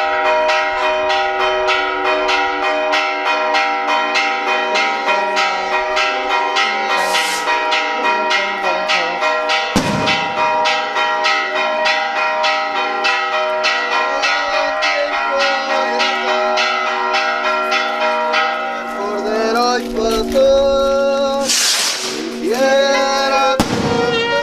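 Church bells rung in a fast, even peal of rapid strokes. About 19 seconds in, a brass band starts playing over them. A short hiss about 7 seconds in and a sharp bang about 10 seconds in cut through the peal, and a longer loud hiss comes near the end.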